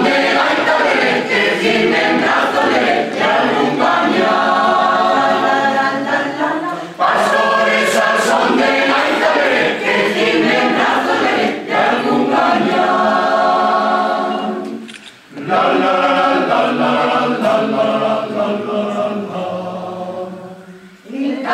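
Mixed choir of women's and men's voices singing a song in harmony, in phrases with short breaths between them and a clear pause about two-thirds of the way through.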